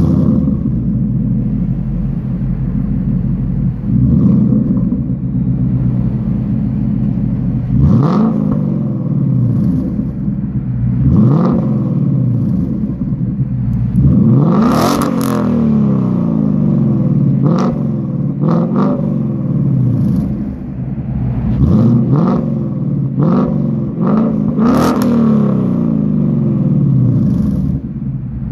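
2015 Ford Mustang GT's 5.0-litre V8 through its exhaust, blipped about ten times, each rev rising sharply and falling back to a burbling idle.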